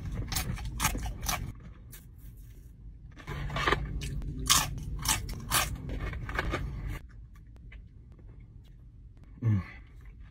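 Close-up crunching and chewing of crispy Jack in the Box tiny tacos: a run of sharp crunches at the first bite, then a second, longer spell of crunching chews from about three to seven seconds in. A brief falling hum comes near the end.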